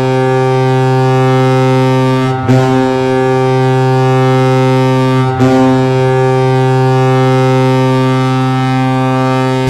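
Colorado Avalanche goal horn blowing one steady low tone in three long blasts, broken briefly about two and a half and five and a half seconds in.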